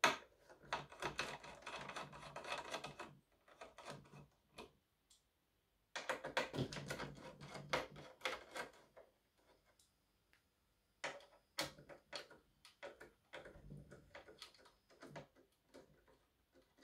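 Screwdriver turning out the screws on the circuit board inside a portable power station: dense clicking and scraping in three spells of a few seconds each, with short pauses between, and a sharp click at the very start.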